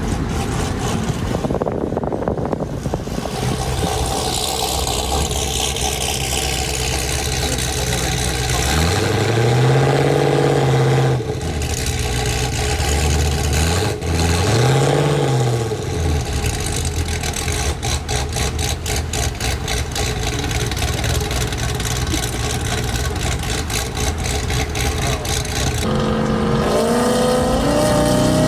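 Chevy SS's LS3 V8, with catless headers and an aftermarket cam, running under way. It revs up and back down twice, then pulls hard with rising revs near the end.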